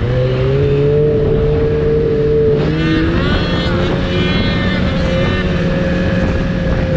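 Snowmobile engine running steadily at cruising speed, heard from the rider's seat, its pitch wavering only slightly.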